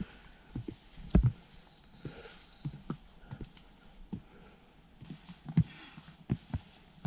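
Footsteps of hiking boots on a wooden boardwalk: short, dull thuds at a steady walking pace, about one or two a second.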